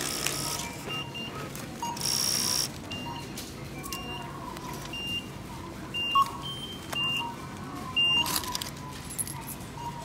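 Short, high electronic checkout beeps repeating about once a second. A brief noisy burst comes about two seconds in and another just after eight seconds.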